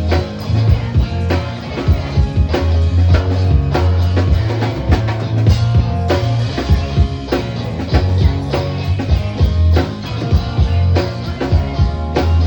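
Rock band playing live: drum kit and guitar over heavy, sustained bass notes, with no singing.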